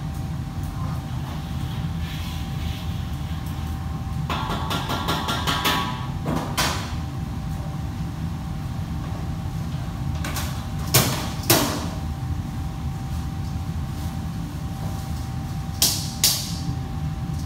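Restaurant kitchen work sounds: metal cookware and utensils clattering over a steady low machine rumble with a faint steady tone. A stretch of quick rattling comes about a third of the way in, and sharp ringing metal clanks come twice in the middle and twice near the end.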